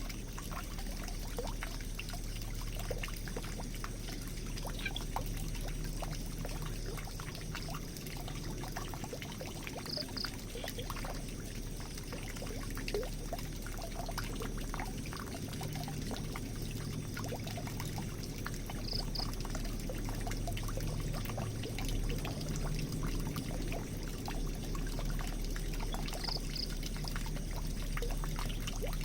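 Water pouring and trickling into a drain in a steady flow. A faint high double chirp recurs about every nine seconds.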